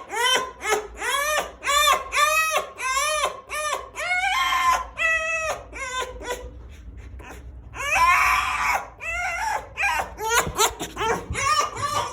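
A fox making excited, happy greeting whines: a quick run of short, high, arching squeals, about two a second, broken by a longer, harsher raspy call about four seconds in and another about eight seconds in.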